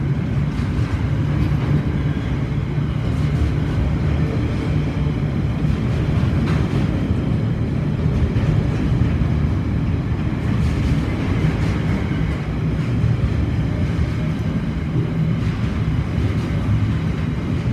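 Class 66 diesel-electric freight locomotive's two-stroke V12 engine running, a low, steady drone.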